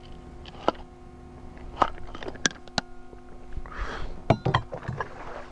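Scattered light clicks and knocks from fishing tackle and the boat's deck as a small bass is reeled in. A short rushing noise comes about four seconds in.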